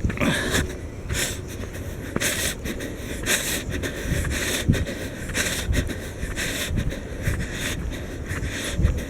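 A person breathing hard while walking briskly, a breath drawn about once a second, over a steady low rumble.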